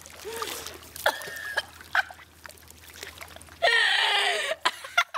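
A person gagging and retching, with liquid trickling and splashing. A long, loud retch comes a little past halfway, its pitch sliding down.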